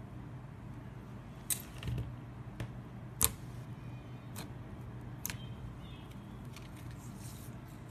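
Fingers pressing and squeezing fluffy slime, giving a handful of sharp sticky clicks and pops spread out, the loudest a little past three seconds in, with small crackles near the end. A steady low hum runs underneath.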